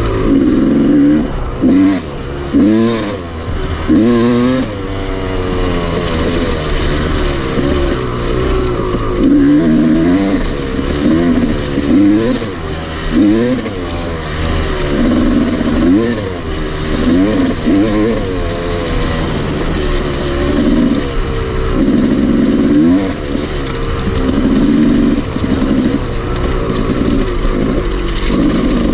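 Dirt bike engine revving up and down over and over as the rider rides, the pitch rising and dropping again many times.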